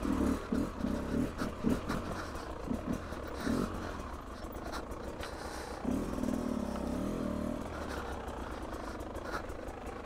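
Beta RR 300 two-stroke single-cylinder enduro engine under way on the trail, blipped in short uneven bursts for the first few seconds, then held on a steadier rev for about a second and a half near the middle, over a constant low rumble.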